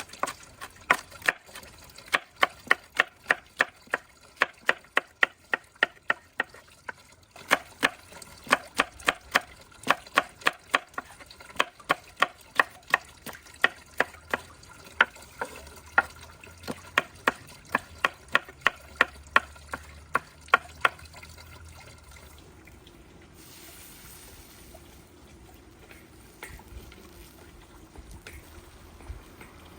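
Knife chopping food in quick, even strokes, about three a second, each stroke giving a sharp knock with a short metallic ring; the chopping stops about two-thirds of the way through. After that only a faint steady hiss with a low hum remains.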